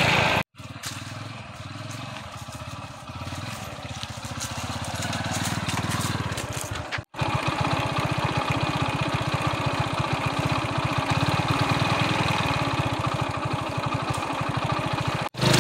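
Motorcycle engine running, broken by two brief cuts to silence. It is quieter and slowly getting louder at first, then louder and steady from about seven seconds in.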